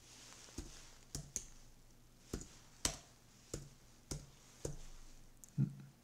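Keystrokes on a computer keyboard: about ten separate, fairly faint key taps at an uneven pace.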